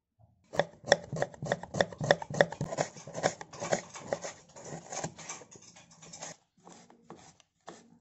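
Kitchen knife slicing an onion on a cutting board: quick, regular strokes, several a second, starting about half a second in and thinning out to a few scattered cuts over the last two seconds.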